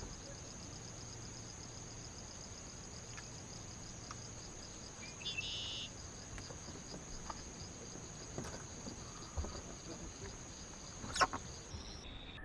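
Steady high-pitched trilling insect chorus from the marsh vegetation, with a few faint clicks and one sharp knock near the end.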